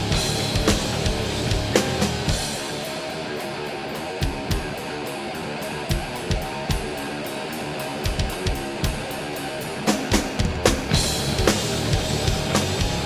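Hard rock band recording with electric guitars, bass and drum kit. About two seconds in the low end drops away into a thinner passage driven by guitar and drum strokes, and the full band comes back in near the end.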